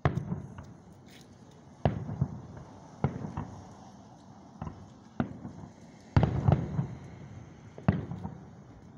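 Aerial firework shells bursting, about seven booms at uneven gaps, each trailing off in a rumble, with the loudest a quick cluster of bursts about six seconds in.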